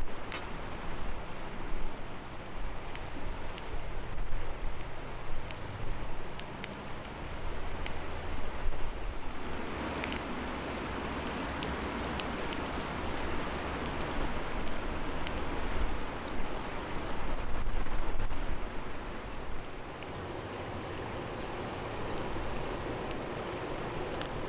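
Wood campfire crackling, with scattered sharp pops over a steady rushing noise that swells about ten seconds in and eases again near twenty seconds.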